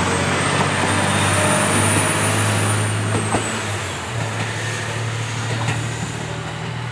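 Train at the station: a steady low mechanical drone with a faint high whine that rises a little and falls back, the whole sound easing off in the second half.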